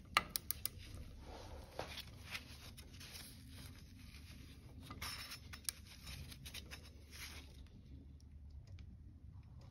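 Faint rustling and scraping of a work glove handling a torque wrench and socket on the ATV's front axle nut during tightening. A few sharp clicks come in the first second, with scattered ticks and scrapes after.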